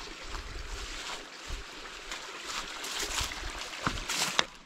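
Wind buffeting the microphone outdoors, with scattered rustling and footsteps on a dirt trail, the loudest near the end.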